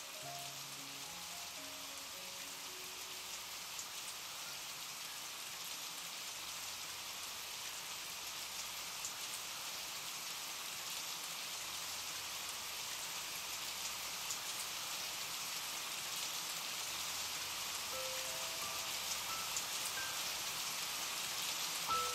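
Steady rain falling, growing gradually louder. A few soft notes of background music sound at the start and again near the end.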